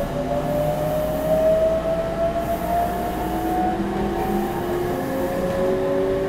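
Meitetsu 3700 series electric train's GTO-VVVF inverter and traction motors whining in slowly rising tones as the train picks up speed. Just before five seconds in, the whine breaks off and a lower tone starts climbing again. Wheel and rail running noise rumbles underneath.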